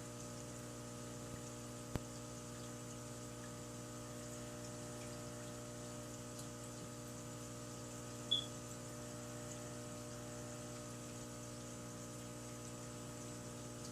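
Steady low electrical hum with several steady tones underneath, a faint click about two seconds in and one short high squeak a little past eight seconds.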